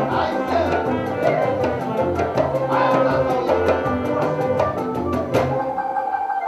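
Adungu, a Ugandan arched harp, playing plucked-string music over a regular bass pulse and fast, even percussion ticks. The percussion stops about five seconds in, leaving the plucked strings alone.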